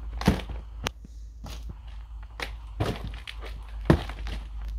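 Handling noises: a handful of sharp knocks and taps, about five spread over four seconds.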